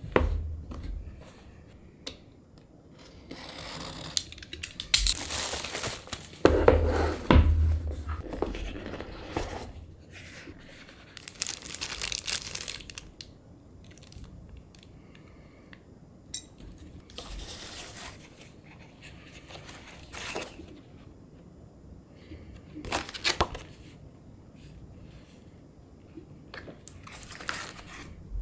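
Packaging being unwrapped by hand: paper and plastic tearing and crinkling in several separate bursts, with a few sharp knocks as the box is handled.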